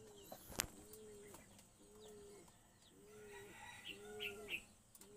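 Pigeon cooing: a short, soft note that rises and falls, repeated about once a second, with a few faint high chirps from small birds in the second half.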